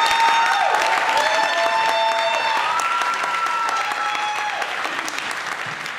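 Theatre audience applauding, with held high calls of cheering over the clapping; the applause slowly dies down.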